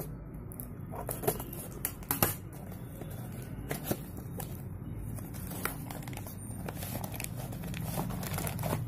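Scissors cutting into a parcel's packaging, then the packaging being handled and pulled open, with scattered irregular clicks and crinkles, the sharpest about two seconds in, over a steady low hum.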